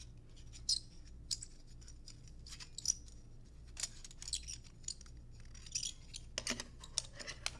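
Light clicks and rustles of 16 mm film being wound by hand onto a take-up spool, with a denser run of clicks near the end as the spool is fitted onto the Bolex H16 camera's take-up spindle.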